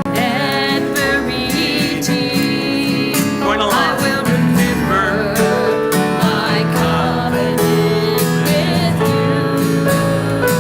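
A congregation singing a song together with instrumental accompaniment, over sustained low notes.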